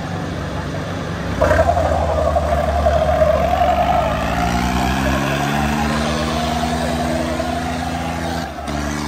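Modified tractor's diesel engine revving up: it jumps louder about a second and a half in, then its engine speed climbs slowly for several seconds before a brief dip near the end.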